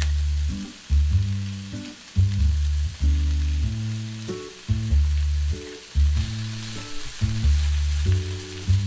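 Background music with deep, pitched notes starting about once a second, over a steady sizzle of cubed potatoes, sliced pork and mushrooms pan-frying.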